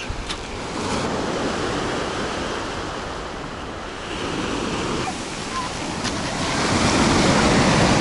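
Black Sea surf breaking and washing up a pebble-and-sand beach, a steady rushing that swells louder about two-thirds of the way in as a bigger wave breaks.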